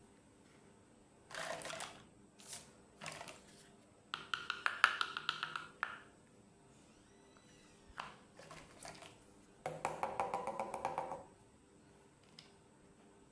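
Small plastic toy pieces and their packaging being handled, in three bursts of rapid clicking and rattling with a few single clicks between them.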